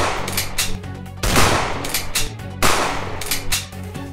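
Loud, sharp gunfire-like shots, each with a ringing tail, coming about every second and a half, over background music with a steady bass.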